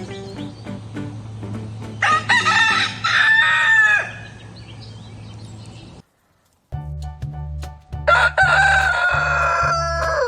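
Rooster crowing twice, each crow about two seconds long, over background music.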